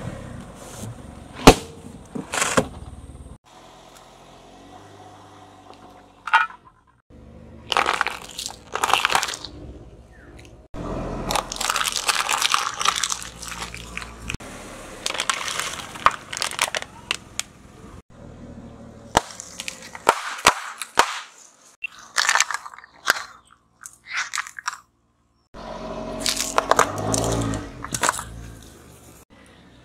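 Car tyres rolling over and crushing objects in a series of short clips: a loud sharp bang about a second and a half in as a balloon bursts under the car, then repeated crackling and crunching as the tyres flatten more things, with radishes squashed near the end.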